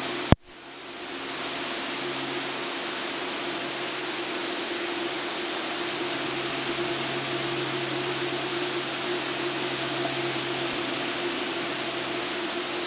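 Steady hiss of engine and wind noise in the cockpit of an Extra 300L aerobatic plane in flight, with a faint steady hum under it. A sharp click comes about a third of a second in as the sound cuts back in.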